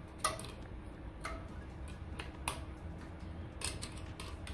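A string of irregularly spaced sharp clicks from a 5/16 tool snugging down the screws of the mount plate on a Harman pellet stove's direct-drive auger motor. The loudest click comes about a quarter second in, with a quick cluster of three near the end.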